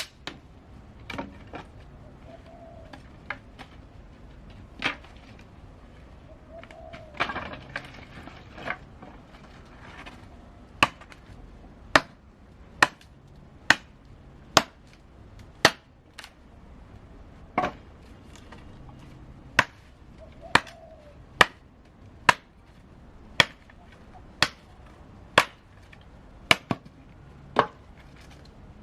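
Chopping: sharp single strikes, a few scattered at first, then steady at about one a second from around ten seconds in.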